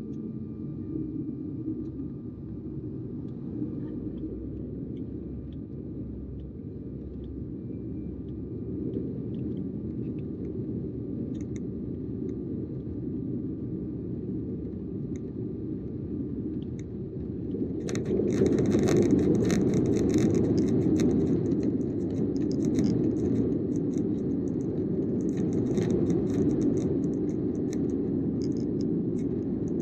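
Cabin noise inside a Sukhoi Superjet 100 airliner on the ground: a steady low rumble from its SaM146 jet engines and the airframe. About two-thirds of the way in it turns suddenly louder, with cabin fittings rattling and scraping over the rumble.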